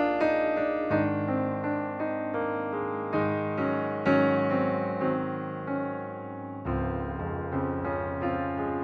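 Background music: a gentle electric piano playing a steady run of notes over a low sustained bass.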